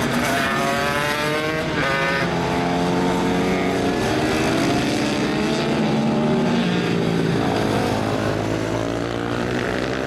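Several supermoto racing motorcycles running at full throttle together, their engine notes climbing in pitch and dropping back at gear changes, with one sharp change about two seconds in.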